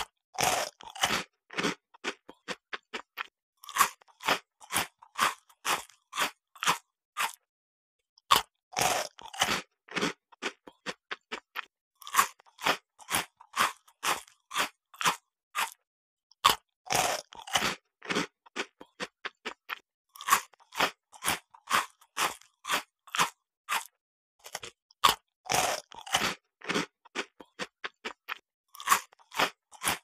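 Crunchy cookie being bitten and chewed: a louder bite crunch every few seconds, each followed by a run of quieter, quick chewing crunches, several a second.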